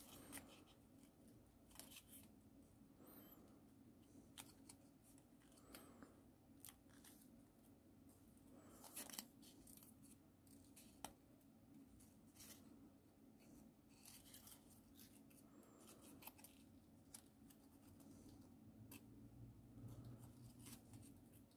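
Faint, irregular crinkles and clicks of folded paper being pinched and creased between the fingers, shaping the head of a paper origami eagle, over a faint steady room hum.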